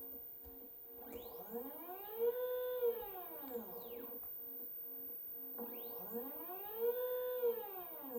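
Stepper motors of an OnStep GoTo drive on a belt-driven Dobsonian telescope mount, slewing twice. Each time the motor whine rises in pitch as the motor ramps up, holds for about a second at full speed, then falls away as it slows to a stop. A faint steady tone runs underneath.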